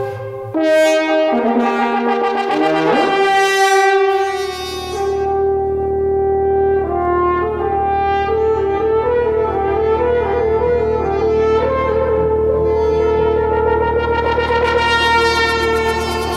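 Two French horns playing a contemporary piece: short detached notes and a rising glide, then long held notes that shift pitch in steps. A low steady drone comes in underneath about four seconds in.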